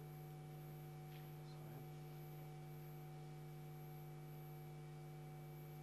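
Faint, steady electrical hum made of a few constant tones, with nothing else happening: room tone.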